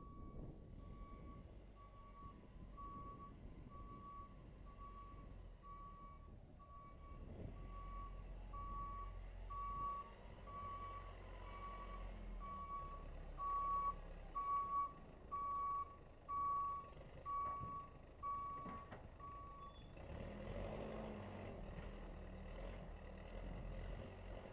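Case 580C backhoe's backup alarm beeping about once a second while the machine reverses, over the low, steady run of its engine. The beeping stops near the end and the engine keeps running.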